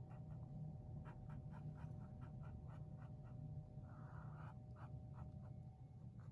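Small paintbrush stroking and dabbing paint onto a canvas, giving it a second coat: a run of faint, short scratchy strokes, about four a second, with a brief soft hiss about four seconds in.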